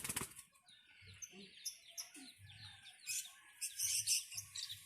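Small birds chirping, a quick run of short high tweets repeating throughout, with a couple of brief rustling noises about three to four seconds in.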